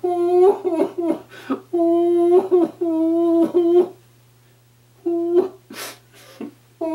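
A man's closed-mouth moaning hums at a high, even pitch: a ventriloquist voicing a handkerchief rabbit puppet in pain as its knot is pulled tight. Several held tones come in a row, then a pause of about a second, then a short breathy hiss and a few shorter moans.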